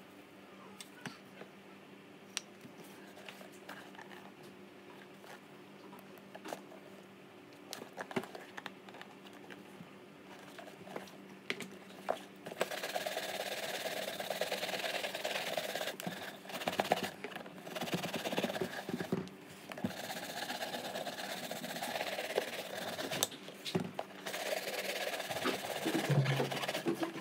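Shoe brush scrubbing over the leather of a White's Semi Dress boot in runs of quick back-and-forth strokes with short breaks, starting about halfway through; before that, only faint handling clicks.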